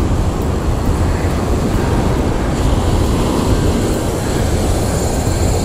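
Wind buffeting the microphone over waves breaking on the beach: a steady, loud, low rumble with a hiss.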